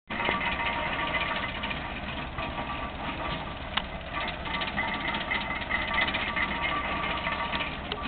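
A tractor engine running steadily, driving a 1924 Ann Arbor Model 40 stationary hay press by flat belt, with the press's gearing clicking and clattering over it and one sharp click a little before the middle. The press is freshly greased and running smoothly.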